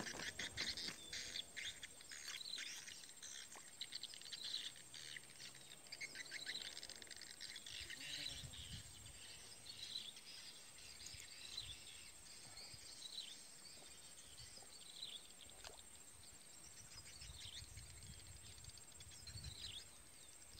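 Faint rural outdoor ambience: small birds chirping in short high calls and insects, busiest in the first few seconds.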